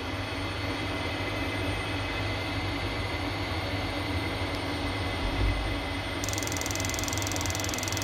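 Steady low mechanical rumble and hum, which the engineer puts down to a washing machine running; it covers the boiler's ignition spark. A faint, fast, high ticking joins about six seconds in.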